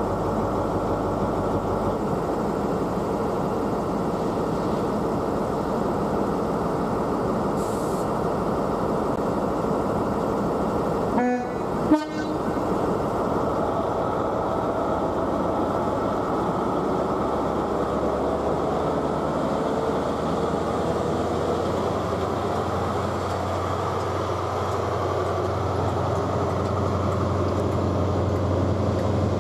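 Class 43 HST power car's MTU 16V4000 diesel engine running as the train pulls away from the platform. About eleven seconds in comes the driver's brief two-tone horn, two short notes in quick succession. In the last few seconds the engine note builds as the train gathers speed.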